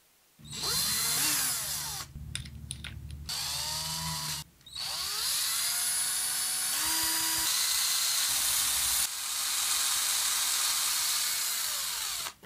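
Drill spinning a plywood disc mounted on a bolt while sandpaper is held against its edge to sand a pulley groove: the motor whine speeds up and slows down several times over a steady sanding hiss. It drops away briefly about two seconds in and again about four and a half seconds in, and cuts off suddenly near the end.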